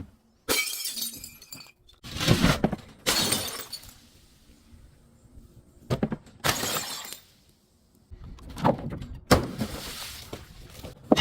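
Glass breaking and shattering in several separate crashes, each followed by trailing clinks of shards.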